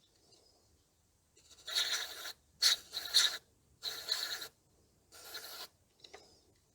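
Aerosol contact cleaner spraying in four short hisses, each under a second long and about a second apart, cleaning a dirty power steering and cooling-fan wiring connector socket.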